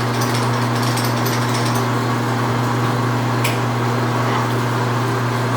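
Metal lathe drilling with a 2-1/2 inch drill into cold rolled steel: a steady hum under load with a scattering of light ticks in the first couple of seconds and a single sharp click about three and a half seconds in.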